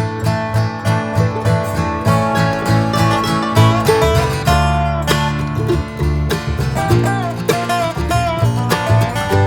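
Background music led by acoustic guitar, plucked and strummed over a bass line with a steady beat.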